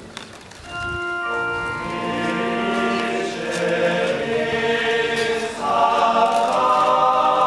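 Choir singing liturgical music in held notes. It comes in about a second in and swells louder near the end.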